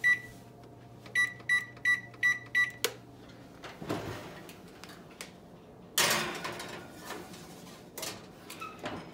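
Electric range's oven control panel beeping as its keys are pressed: one beep, then six quick beeps about three a second. The oven door then opens and a metal baking sheet slides onto the oven rack, the loudest sound, about six seconds in, with a click near the end.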